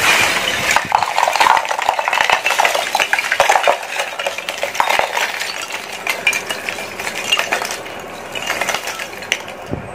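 Lumps of hardwood charcoal pouring out of a jute sack into a brick fire pit, a dense, continuous clatter and clinking of charcoal pieces knocking together. The pour thins to a few last clinks near the end.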